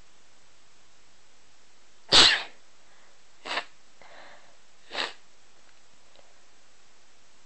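A person sneezing three times in quick succession: a loud sneeze about two seconds in, then two smaller ones about a second and a half apart. The sneezes are induced.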